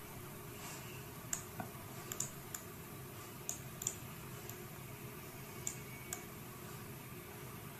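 Computer mouse clicking: a few short, faint clicks, several in pairs, over a faint room hiss.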